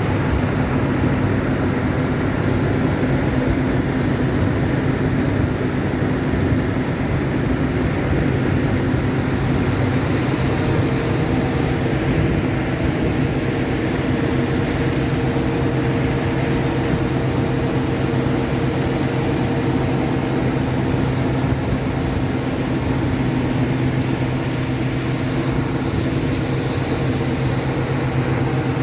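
Harvest machinery running steadily: a steady engine drone, with a hiss that grows louder about ten seconds in.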